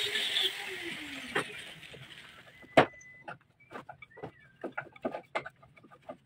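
A passing motor vehicle fades away over the first two seconds, its pitch falling. Then comes a scatter of short, sharp knocks and clicks, the loudest a little before the middle, with a brief high chirp.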